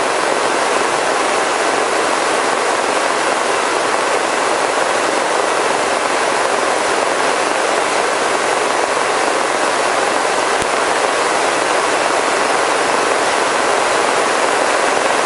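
Steady rushing noise inside the cabin of a Robinson R44 helicopter in cruise flight: airflow, rotor and engine blended into one even sound with no clear beat or tone.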